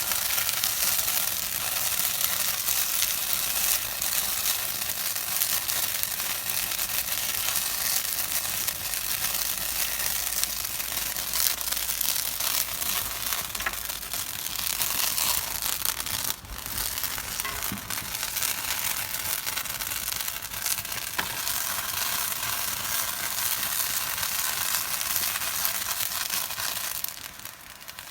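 Steak frying in a hot skillet: a steady crackling sizzle, with a brief break about halfway through and a quieter stretch near the end.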